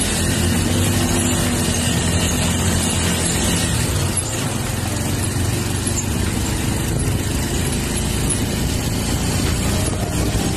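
Motorcycle engine running while riding along a road, with a steady rush of wind and road noise. A steady low engine note is clearest in the first few seconds, then sinks into the rushing noise.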